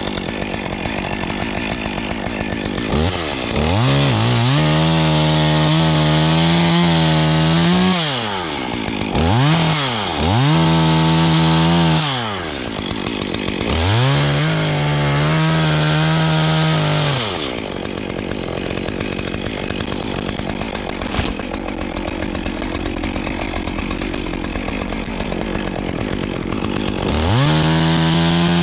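Two-stroke chainsaw revved to full speed four times, holding for a few seconds each time as it cuts wood, then dropping back to idle in between.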